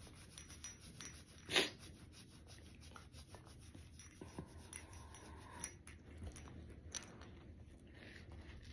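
A hand rubbing and scratching a dog's fur: faint, soft rubbing and rustling, with one brief louder noise about a second and a half in.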